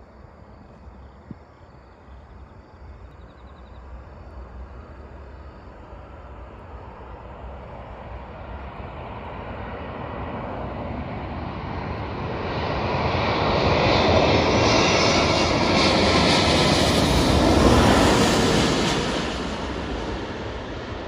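Twin-engine jet airliner on final approach to land. Its engine noise grows steadily louder into a rushing roar with a high whine on top as it passes low overhead, then starts to fade near the end.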